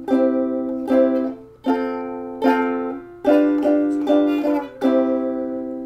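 Chords strummed on an acoustic string instrument. The first strums are spaced out and left to ring, then comes a quicker run of strums in the middle, and a final chord rings out near the end.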